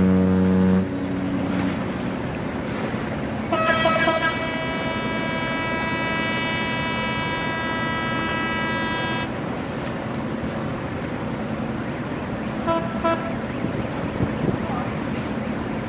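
A deep ship's horn sounding, which cuts off under a second in. About three seconds later a higher-pitched horn gives a few quick stuttering blasts, then a long steady blast of some five seconds, and two short toots near the end. A steady low rumble of engines and water runs underneath.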